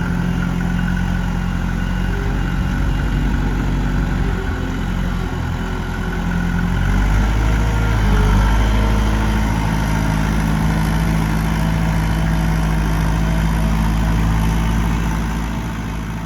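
Kubota L48 backhoe's four-cylinder diesel engine running steadily. About seven seconds in its note shifts and it gets a little louder, as with a throttle or load change.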